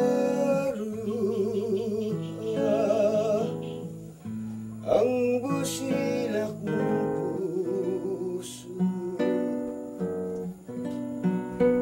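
A harana, the Filipino serenade: a singing voice with wide vibrato over plucked acoustic guitar. The voice drops out about two thirds of the way through and the guitar carries on alone.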